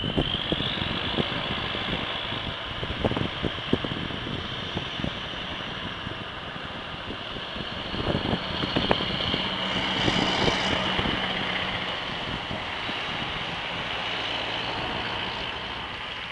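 Scania tractor-trailer's V8 diesel engine pulling away and driving past, getting louder to a peak about ten seconds in and then easing off as the truck moves away.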